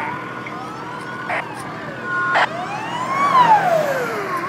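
Fire truck sirens wailing, their pitch sweeping slowly up and down, with more than one siren overlapping. Two short, sharp sounds cut in, about a second and a half and two and a half seconds in.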